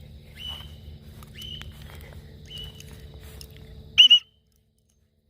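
Cockatiel giving short, rising whistled contact calls about once a second, ending in a much louder double call about four seconds in, after which the sound cuts off. The owner takes the calling as the bird searching for its missing flockmate.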